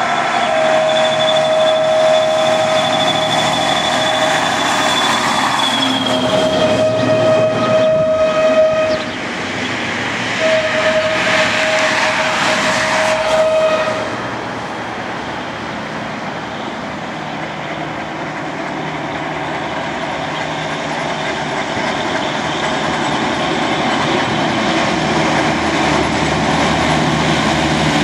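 Lxd2 narrow-gauge diesel-hydraulic locomotive sounding its horn in three long blasts of a few seconds each. Its engine then runs steadily and grows louder as it approaches, with road vehicles alongside.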